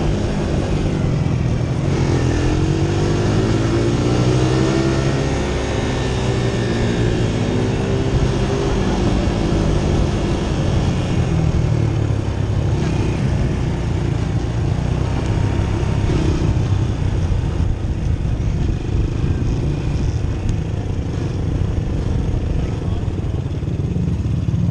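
Honda sport quad's engine heard from on board, revving up and down as it is ridden around a dirt track, with its pitch rising and falling through the first few seconds and holding steadier after.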